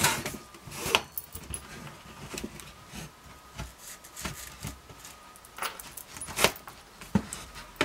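Metal axle rod being worked through PVC pipe fittings: irregular clicks, knocks and scraping of metal on plastic, the sharpest knock about six and a half seconds in.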